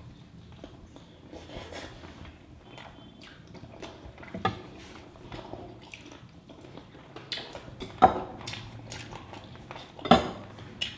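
Close-up eating sounds of a person chewing chicken curry with rice: wet chewing and mouth clicks, with a few sharper smacks about four and a half, eight and ten seconds in.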